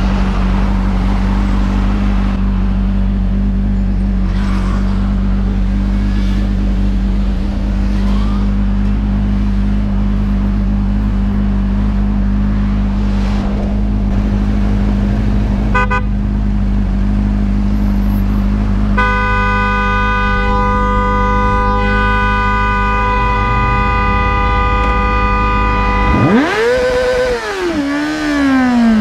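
Sport motorcycle engine idling at a standstill. About two-thirds of the way in a vehicle horn sounds and is held for several seconds, and near the end the motorcycle engine revs up and falls back as it pulls away.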